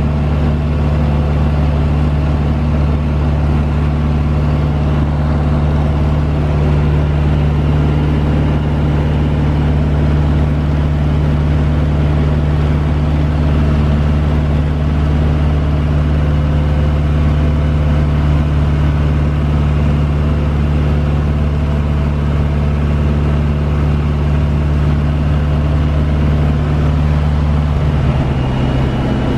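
Aeronca 11BC Chief light aircraft's engine and propeller droning steadily in flight, heard from inside the cabin with airflow noise. Near the end the drone drops a little in pitch.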